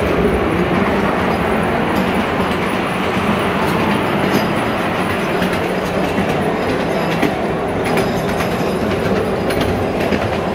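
Sound of a train running on rails, a steady, even noise, played over loudspeakers as the soundtrack of a projected film.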